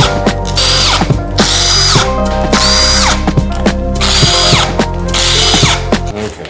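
Electronic background music: the same buzzy synth phrase repeats about once a second over a steady bass line, and the track cuts off abruptly near the end.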